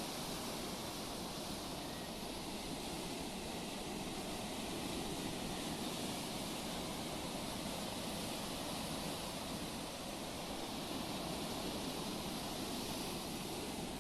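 Sea surf: a steady rush of waves washing in, swelling slightly now and then.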